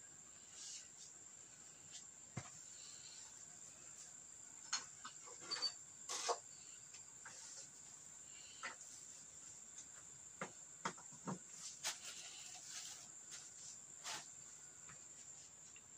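A faint, steady high-pitched tone, with about ten short faint clicks and taps scattered through it.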